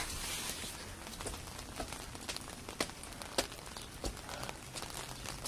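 Steady rain hiss with footsteps climbing wet stone steps, sharp ticks about twice a second.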